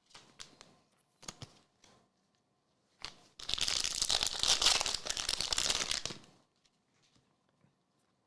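A few light handling clicks, then, about three seconds in, a trading-card pack's wrapper being torn open and crinkled for about three seconds.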